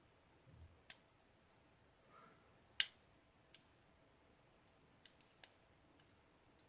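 Small metal clicks of a Norinco NP34 pistol's trigger bar spring and frame parts being worked with a tool and fingers to seat the spring, one sharp click a little under three seconds in and a few fainter ones scattered after it.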